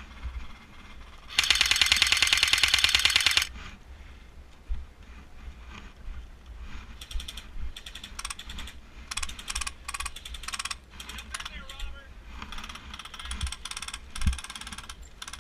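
Airsoft gun firing a rapid full-auto burst of about two seconds near the start, followed by scattered, quieter shots and short bursts for the rest of the time.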